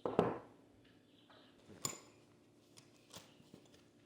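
A few sharp, scattered clicks and taps from hands handling a disassembled airsoft pistol slide and small tools. One metallic click about two seconds in is the loudest.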